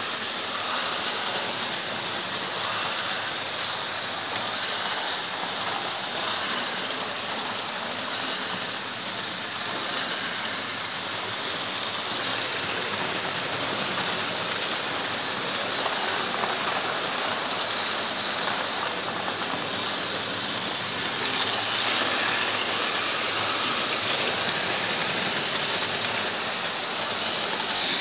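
Several model railway trains running at once on the track, their motors and wheels making a steady, even rushing noise.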